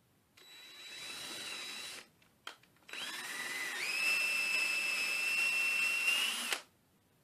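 Power drill fitted with a 13/32-inch bit boring out a stud bushing hole in a guitar body, one bit in a series used to enlarge the hole. It runs twice: a short run of about a second and a half, then a longer one of about three and a half seconds whose whine jumps up in pitch about a second in.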